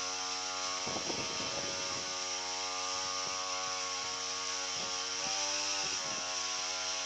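Small engine of a power sprayer running at a steady speed, driving a herbicide spray lance, with brief rustling and knocks about a second in and again later on.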